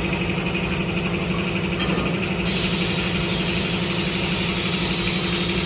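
Steady motor hum with the hiss of compressed air from a paint spray gun laying a car's base coat; the hiss grows louder and brighter about two and a half seconds in.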